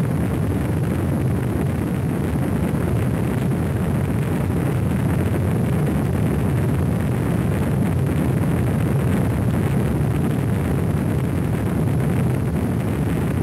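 Space Shuttle Columbia lifting off on its three liquid-fuelled main engines and two solid rocket boosters: a steady, dense low rumble that does not let up.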